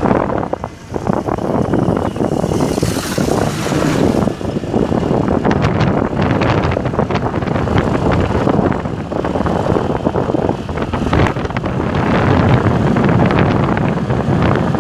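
Wind buffeting the phone's microphone while riding a motorised two-wheeler, with the engine and road noise underneath. It is a loud, rough, gusty rush, dipping briefly near the start.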